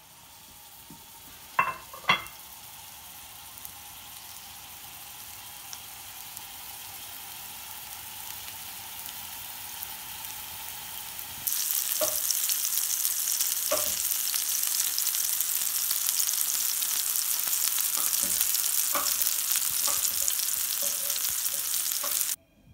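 Small lamb and feta meatballs frying in hot chili-infused rapeseed oil in a pan: a steady sizzle that jumps louder about halfway through, with a few sharp clicks and pops.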